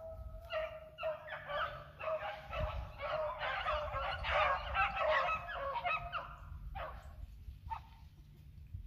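A pack of beagles baying in full cry on a rabbit, many voices overlapping, then thinning out to a few short calls about seven seconds in.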